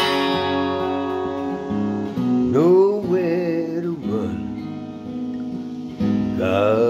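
Acoustic guitar: a strummed chord at the start rings out and slowly fades, with further chords under it. A man's wordless sung vocal rises in pitch and wavers twice, about two and a half seconds in and again near the end.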